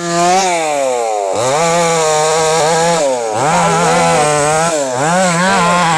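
Two-stroke chainsaw with a 22-inch bar running at high revs. It starts abruptly, its pitch sagging over the first second, then holds high with brief drops in engine speed that recover, about three times.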